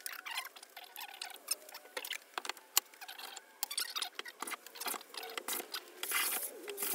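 Scattered small scrapes and clicks, then, about six seconds in, the cast-iron sole of a Stanley Bailey hand plane rubbed back and forth on 180-grit emery cloth, a dense scratchy rasp. The sole is being lapped to clean up rust pitting.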